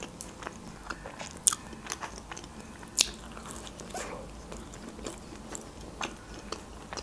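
Mouth sounds of a person biting and chewing homemade mini pizza, with scattered crunchy clicks. The loudest come about one and a half and three seconds in.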